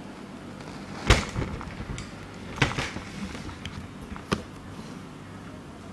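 Plastic laundry basket lined with aluminium foil being handled: three sharp knocks, each about a second and a half after the last, with light rustling and smaller clicks between.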